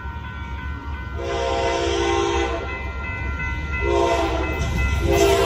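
Amtrak GE Genesis P42DC diesel locomotives sounding the horn for a grade crossing: a long blast, a short one, then another long one that carries on, over a deep engine rumble that grows louder as the train comes up to the crossing.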